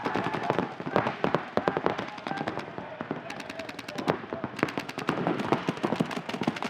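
Paintball markers firing rapid strings of shots, several guns overlapping, with a fast, even burst about halfway through.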